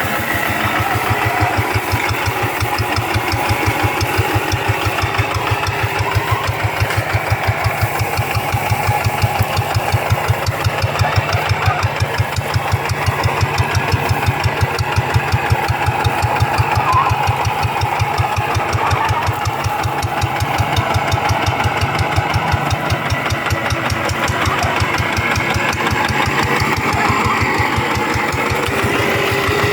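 Single-cylinder diesel engine of a two-wheel paddy-field hand tractor running steadily, with a quick, even beat of firing pulses.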